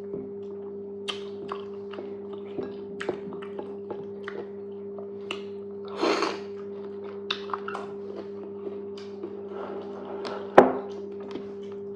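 Close-miked eating of fufu and okra soup: scattered wet clicks and smacks of chewing, a longer squishy burst about six seconds in and a sharp knock near the end, over a steady low hum.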